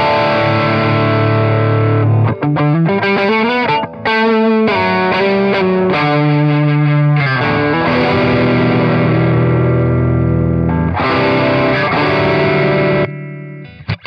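Electric guitar played through a Kernom Ridge analog overdrive pedal on a high-gain setting. It plays sustained distorted chords, with a quick single-note lick of bends and vibrato a couple of seconds in. The chords are cut off shortly before the end.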